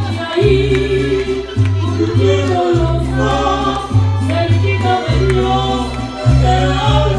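Music: a song with several voices singing over a heavy, pulsing bass line.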